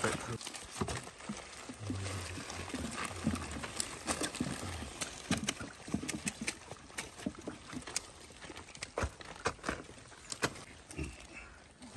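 Irregular rustling and crackling of wet leaves, plastic litter and nylon netting as gloved hands sort through debris caught in a fishing net, with scattered small clicks and knocks.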